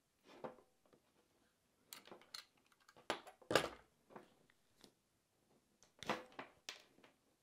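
Scattered light clicks and knocks of hand tools worked and set down on a wooden tabletop while the outer sheathing of a power cable is cut back with a utility knife. The loudest knock comes about three and a half seconds in, with another small cluster near the end.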